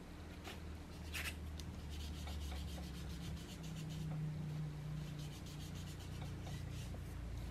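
Small round foam finger dabber scuffing and rubbing Distress Oxide ink onto cardstock, blending in a new colour. The rubbing is faint, with a few soft taps as the dabber picks up ink from the pad.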